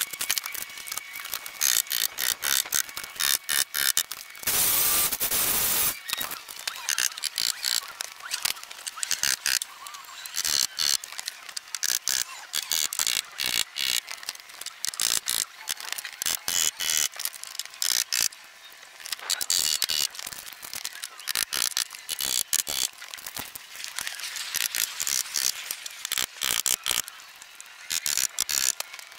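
Rapid, irregular clicking and rattling from carpentry work on wood framing. About four and a half seconds in, a power tool buzzes steadily for about a second and a half.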